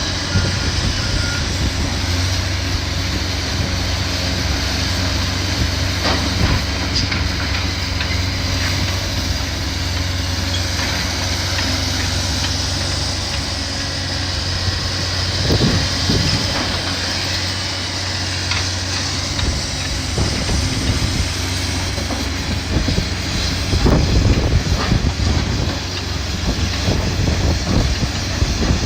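Heavy diesel demolition machinery running steadily, with a few louder knocks and crashes of debris, the biggest about three-quarters of the way through.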